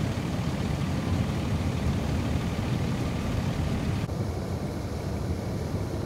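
Steady low rushing and rumbling of water gushing from a sheared fire hydrant under a pickup truck, mixed with a fire engine running nearby. The upper hiss drops away abruptly about four seconds in.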